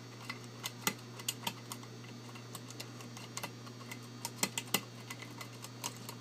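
Light, irregular metallic clicks of a half-diamond lock pick working the pins of a Basi euro cylinder held under a tension wrench, over a steady low hum.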